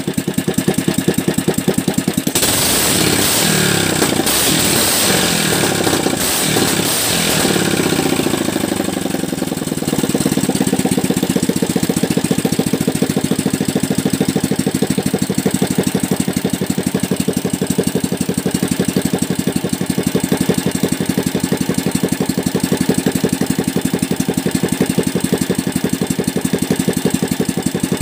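Small single-cylinder OHV petrol engine running. A couple of seconds in it is revved up and down several times while the carburettor is adjusted, then it settles to a steady idle.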